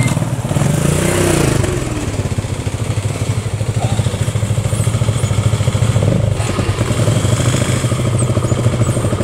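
Motorcycle engine running close by. Its note rises and falls briefly near the start as the bike rolls up and slows, then it settles into a steady idling throb.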